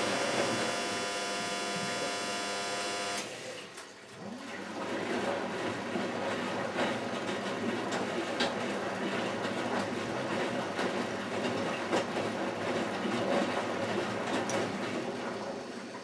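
Miele Automatic 416 front-loading washing machine: a steady motor whine cuts off abruptly about three seconds in. After a short lull, the drum starts turning again and tumbles the laundry, a rough running sound with irregular knocks.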